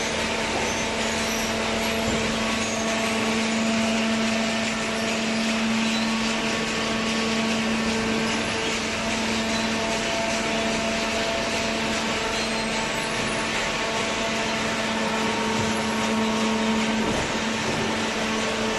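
Hydraulic baling press running: its motor and pump give a steady hum with a constant drone over a hiss.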